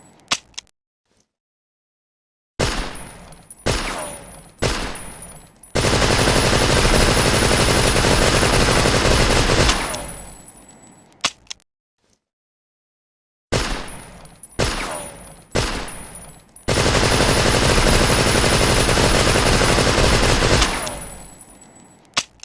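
Tommy gun (Thompson submachine gun) fire, twice over: three single shots, each with a ringing tail, then a long burst of rapid automatic fire lasting about four seconds that fades away, ending in a small click.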